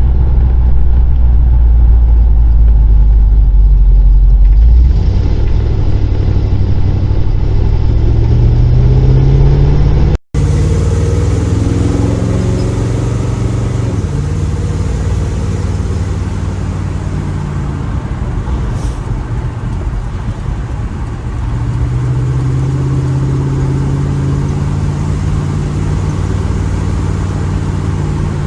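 Small-block Chevy 350 V8 with a freshly fitted exhaust, driving on the road: a deep, steady exhaust rumble. The engine pitch climbs several times as it accelerates and then settles at cruise. The sound drops out for a moment about ten seconds in.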